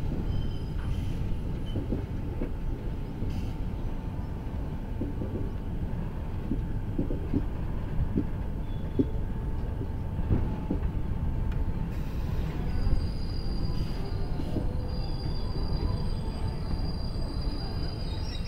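Steady rumble of a passenger train's wheels on the rails, heard from inside a coach by the window, with light scattered knocks. Faint high-pitched whining joins in over the last third.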